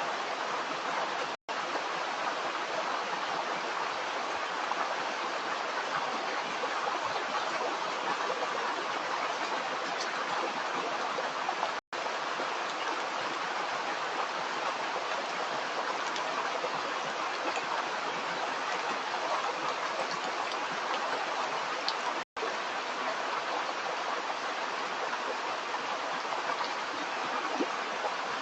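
Stream water running steadily, an even rushing sound. It cuts out for an instant three times, about ten seconds apart.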